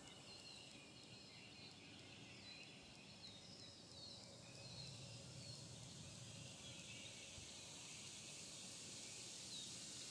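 Near-silent woodland ambience: a small bird's faint, short, high chirps, several in the first six seconds and one near the end, over a steady high hiss.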